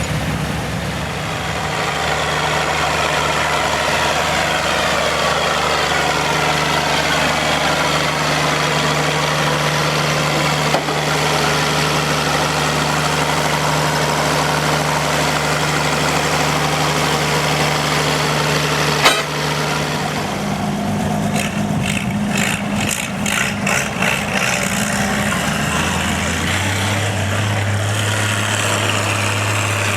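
Farm tractor engine running steadily. A sharp click comes about nineteen seconds in; the engine note then changes with some knocking and settles lower near the end.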